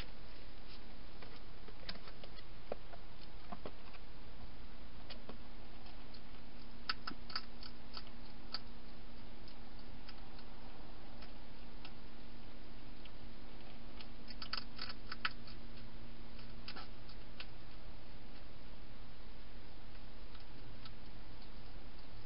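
Wild hedgehog eating inside a plastic feeding box: scattered sharp clicks and crunches, bunched in two short clusters, over a steady hiss. A faint low hum comes in about four seconds in.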